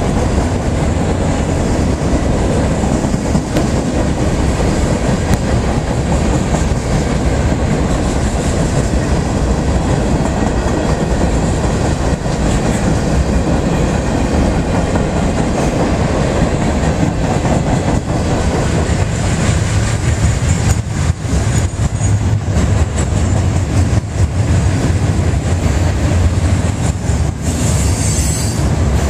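Freight train cars rolling past close by: a steady rumble of steel wheels on rail, with short clicks in the second half.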